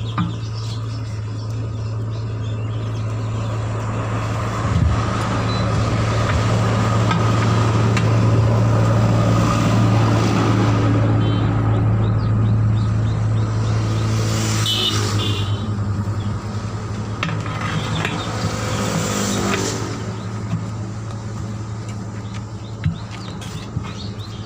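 An engine running steadily with a deep, constant hum that grows louder toward the middle, then breaks into a fast pulsing beat about fifteen seconds in and eases off.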